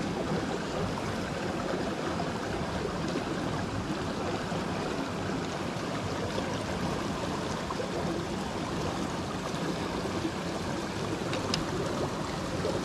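Steady rush of river water flowing, with a faint click near the end.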